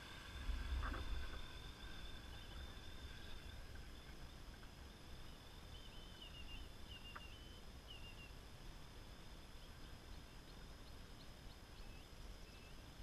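Quadcopter's electric motors and propellers humming faintly as it climbs away into the distance, with a low rumble about a second in. A few short high chirps come in the second half.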